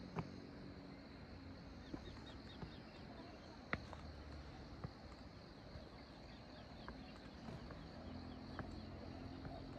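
Faint footsteps of a person walking on a path, irregular steps about once a second, over a steady high chirring of insects.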